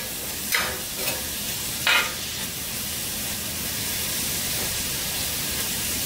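Vegetables sautéing in hot oil in an enamelled cast-iron pot, a steady sizzle. A metal spoon scrapes and stirs through them a few times in the first two seconds.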